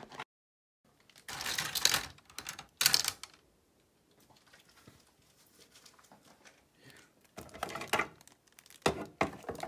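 Handling noise: short bursts of rustling and clatter, two in the first few seconds and two more near the end, with quiet in between. A moment of dead silence just after the start.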